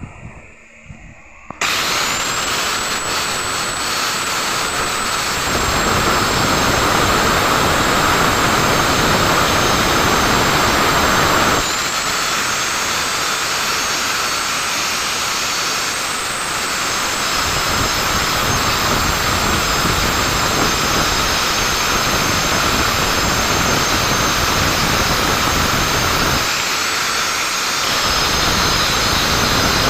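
Electric angle grinder cutting into a wall. Its motor whines up to speed about a second and a half in, then runs with a high steady whine over gritty grinding. It winds up again around twelve seconds and once more near the end.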